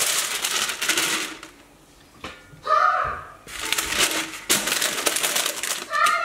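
Parchment paper crinkling and rustling as it is pressed into a pressure cooker's inner pot under the air-fryer basket, in bursts with a quieter gap about two seconds in.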